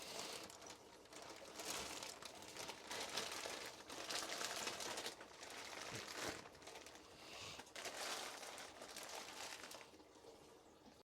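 Plastic Ziploc bag crinkling and rustling in uneven bursts as it is handled, fading away near the end.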